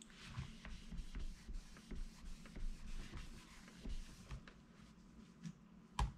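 Light rubbing and scattered soft taps of a stamp and paper being handled and pressed on a craft table, with one sharper tap near the end.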